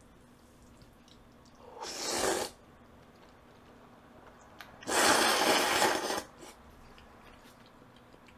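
A person slurping jjajangmyeon noodles twice: a short slurp about two seconds in, then a longer, louder one about five seconds in.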